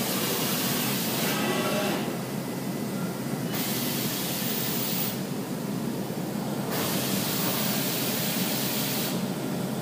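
Compressed-air hiss from a CNC milling centre's automatic tool-setter measuring cycle, switching on and off in three or four bursts of one to two and a half seconds each, over a steady machine hum.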